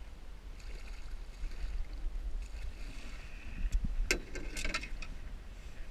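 A hooked pike thrashing at the surface beside a small boat, with a few sharp splashes about four seconds in, over a steady low rumble of wind on the microphone.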